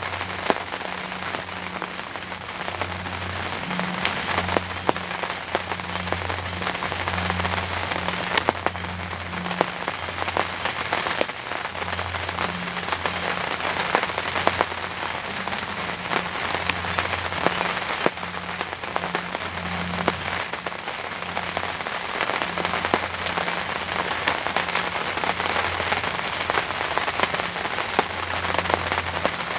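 Heavy rain pouring steadily, with many single drops striking close by as sharp ticks. A low, uneven hum pulses underneath.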